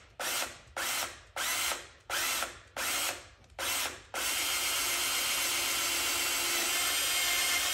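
Cordless drill boring out a broken 8 mm exhaust stud in a VW 1600 dual-port cylinder head with a larger bit. It runs in short trigger bursts, about two a second, then is held on steadily from about four seconds in.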